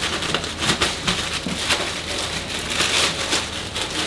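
Clear plastic bag crinkling and rustling as it is handled and the dough inside is worked out of it, a dense run of irregular crackles.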